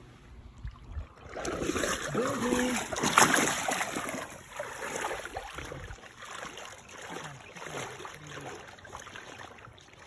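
Water splashing and sloshing, loudest for a couple of seconds near the start, then settling to an uneven wash.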